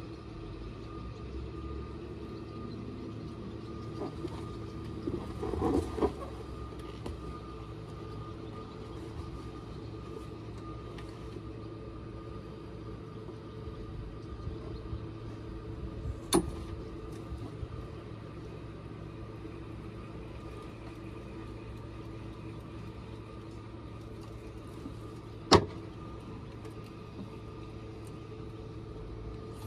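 A steady mechanical hum that stays at one pitch, broken by a sharp click about sixteen seconds in and a louder sharp knock about twenty-five seconds in.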